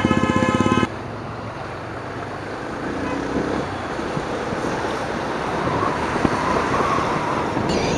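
A motorcycle engine idling with a rapid, even thump for about a second, then a sudden cut to the steady wind and road rush of riding a motorcycle at highway speed.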